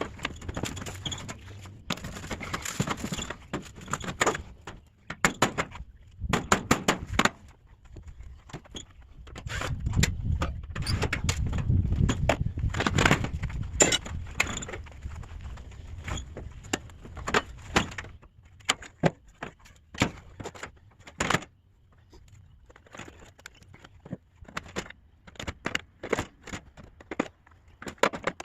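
Irregular knocks, clatter and rattling of hard objects being handled, with a low rumble through the middle and sparser clicks near the end.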